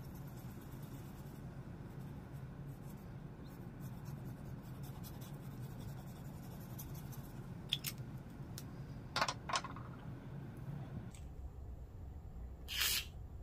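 Fountain pen nib scratching over paper in quick looping strokes, over a low steady hum that cuts off about eleven seconds in. A few sharp clicks come around eight to ten seconds in, and a brief louder rustle near the end.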